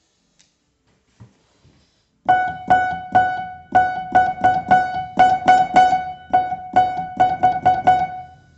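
A single piano key struck repeatedly, about twenty times in quick succession, sounding the same high note each time; a few faint clicks come before the playing starts.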